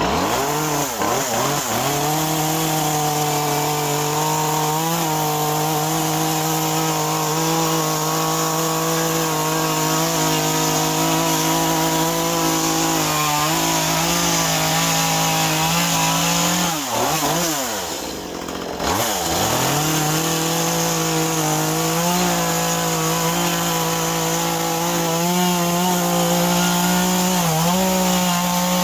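Echo CS-2511T top-handle carving chainsaw, a small two-stroke, running at high revs as it cuts into a wet cedar block. The revs sag briefly several times under load, and the saw eases off and revs back up about two-thirds of the way through.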